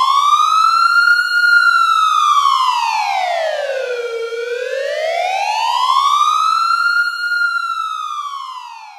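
Mock emergency-alert siren: one wailing tone sweeping slowly up and down, twice, each rise and fall taking about six seconds. It fades away near the end.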